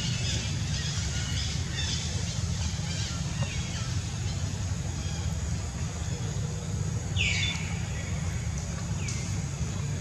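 Outdoor ambience: a steady low rumble with small birds chirping, and two loud high calls that slide down in pitch, about seven and nine seconds in.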